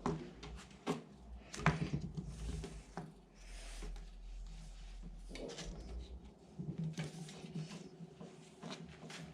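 Scattered knocks, clicks and rubbing as window glass and rubber seals are worked off a Land Rover Discovery 1 body, with a longer hissing rub midway.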